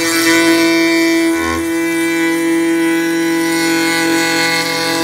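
Makita compact router running with a steady whine, its quarter-inch roundover bit spinning, with a brief change in tone about a second and a half in.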